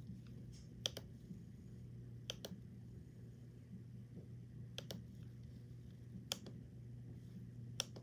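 Quiet sharp clicks at a laptop computer, coming in pairs about every second and a half, five pairs in all, over a steady low hum.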